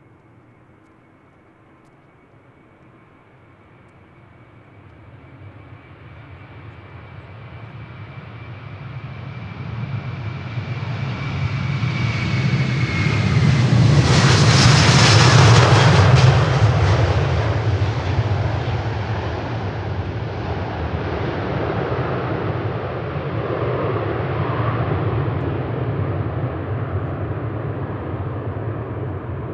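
Wide-body jet airliner taking off and passing by, its engines at takeoff power. A high fan whine slides slightly lower in pitch as the jet noise builds to a peak about halfway through. The deep rumble then lingers and slowly eases.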